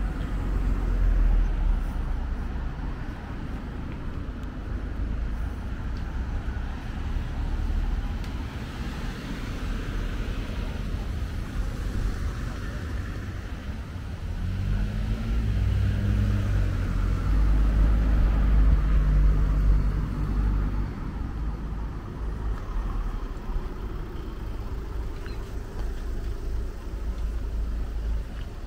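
Road traffic driving past: a steady low rumble of cars, with one vehicle's engine note bending in pitch and then holding for several seconds around the middle, where it is loudest.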